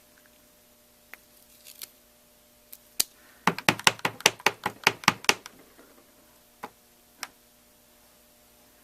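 A clear stamp on an acrylic block tapped quickly about a dozen times onto an ink pad, roughly six light knocks a second for about two seconds. A few single clicks of the block being handled come before and after.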